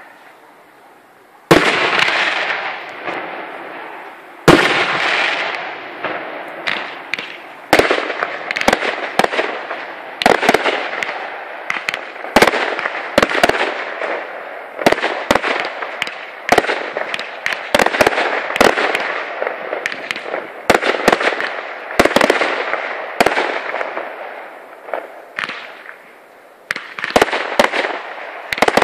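Fireworks display: shells bursting one after another, each sharp bang trailing off in a long echo. The first bang comes about a second and a half in, and the bangs get denser after several seconds.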